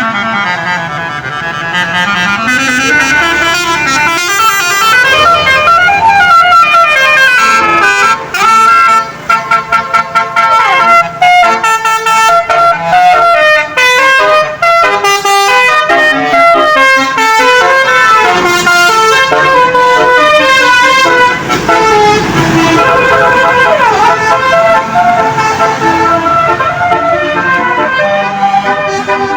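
Basuri telolet bus horn playing a melody: loud horn notes stepping up and down in pitch. A rapid, choppy run of short notes comes about a third of the way in. In the first few seconds a low tone slides up and down.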